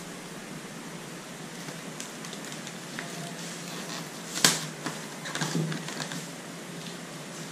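Polyethylene plastic liner and adhesive tape being handled and pressed onto a styrofoam box rim: light crackling and rustling of plastic, with one sharp snap about four and a half seconds in and a short run of crackles just after.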